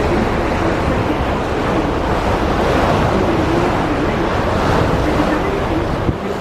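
Steady wind buffeting the microphone over the rush of water along the hull of a moving passenger ferry.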